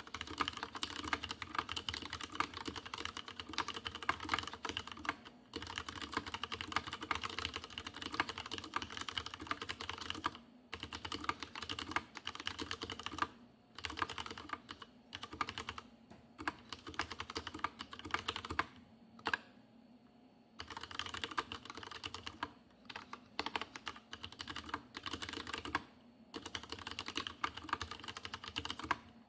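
Fast continuous typing on a Leopold FC750R PS tenkeyless mechanical keyboard with unlubed Cherry MX Red linear switches, the keystrokes clacking in quick runs with a few short pauses. The case rings noticeably under the keystrokes.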